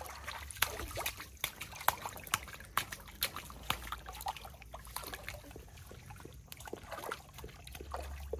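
Shallow water in an inflatable paddling pool splashed and stirred by a toddler's hands: many small, irregular splashes and trickles.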